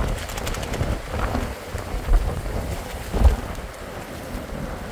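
Strong gusting wind buffeting the microphone in a rumble, with rain, and a couple of brief higher sounds about one and three seconds in.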